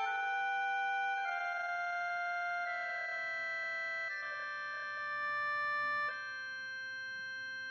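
Electronic organ-like synthesizer tones: a slow run of held notes that step to a new pitch every second or so, then a single held note from about six seconds in.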